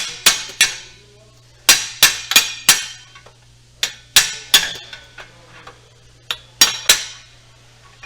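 Metal hammer striking a Genesis G70's starter motor in quick rounds of three or four sharp, ringing blows, several rounds over. This is a technician's attempt to free a starter that only clicks and won't crank, which he then judges to be a failed starter.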